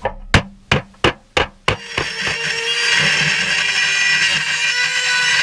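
Hammer blows on a sheet-steel repair panel, about three a second, stopping about two seconds in. Then an electric power tool starts and runs steadily with a whine.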